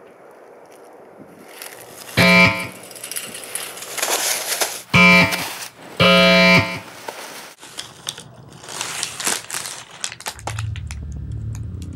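Three loud buzzes on one low, unchanging pitch, each about half a second long, the last two close together. Scattered clicks follow, and music starts near the end.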